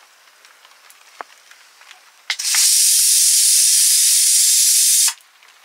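Steam hissing hard and steadily out of a metal cooking pot on a wood fire, starting a little over two seconds in and cutting off suddenly about three seconds later.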